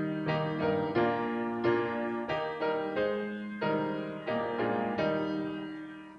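Piano playing a slow piece of struck chords and melody notes, each left to ring and fade; the last chord dies away near the end.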